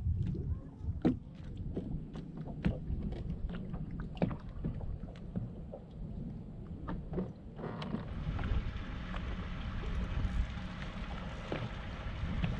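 Small waves lapping against the hull of a drifting bass boat, with wind on the microphone and a scatter of light clicks. About eight seconds in, the clicks thin out and a steady hiss takes over.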